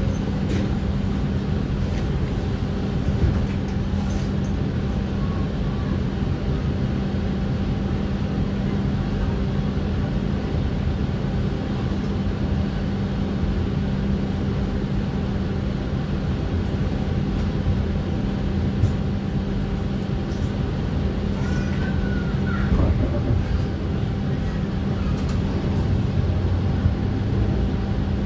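Toronto streetcar running between stops: a steady hum from its drive with wheel and rail rumble underneath, and a brief higher tone about three-quarters of the way through.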